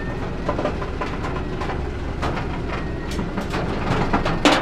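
Flatbed tow truck's engine running steadily while a VW Combi van is pulled up its steel loading ramps, with irregular metallic clicks and clanks throughout and one loud clank near the end.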